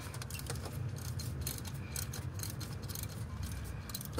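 Socket wrench with a 5/8-inch spark plug socket on an extension, clicking in quick irregular runs as a spark plug is loosened from the cylinder head. A steady low hum runs underneath.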